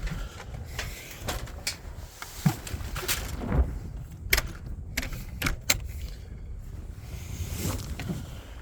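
Light wind rumbling on the microphone, with a scattering of sharp clicks and knocks.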